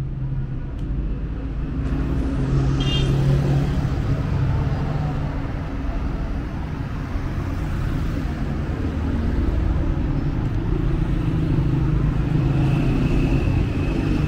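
Street traffic: motor vehicle engines running close by with a steady low rumble. A brief high-pitched tone sounds about three seconds in, and a thin high tone comes in near the end.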